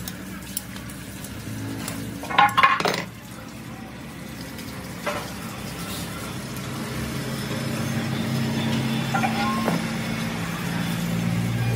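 Metal parts of a truck air brake pedal valve clinking and rattling as they are handled and fitted together by hand, with a short burst of sharp clinks a little over two seconds in and a few single clicks later.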